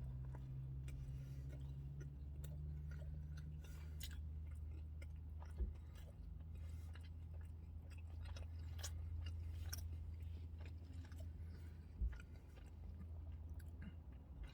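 A man chewing a mouthful of pizza, with faint scattered mouth clicks over a steady low hum. Two short thumps, about five and a half and twelve seconds in.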